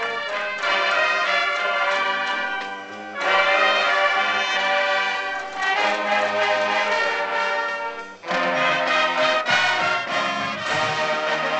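Marching band brass and saxophones playing loud sustained chords. The band drops off briefly about three seconds in and again about eight seconds in, each time coming back in louder.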